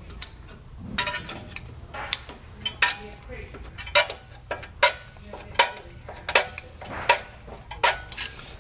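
The star-wheel adjuster of a Land Rover LR3 / Range Rover Sport rear drum-in-hat parking brake is turned with a screwdriver through the rotor's access hole, giving about eight sharp metallic clicks, a little less than a second apart. The shoes are being backed off one full turn from fully locked against the drum.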